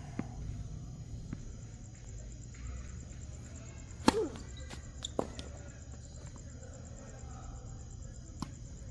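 Tennis racket striking the ball on a serve about four seconds in, a sharp crack, followed about a second later by a fainter pop of the ball on the court or the far player's racket. A steady low hum runs underneath.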